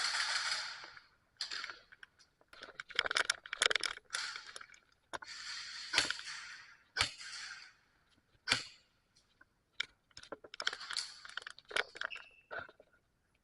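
Airsoft guns firing scattered single shots: about a dozen sharp cracks and clicks, some in quick clusters, with bursts of rustling noise in between.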